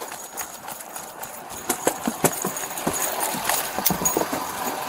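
Quick footsteps on pavement mixed with the knocking and rubbing of a chest-worn body camera jostling against clothing and gear, a rapid irregular clatter that grows louder about two seconds in.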